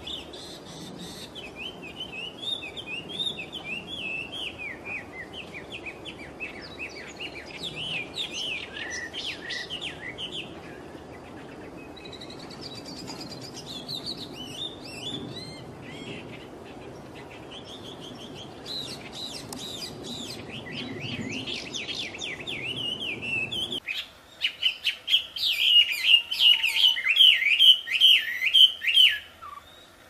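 Wild wambi bird singing: long runs of rapid, chattering whistled phrases that rise and fall in quick notes. About six seconds before the end, a louder, faster burst of song begins.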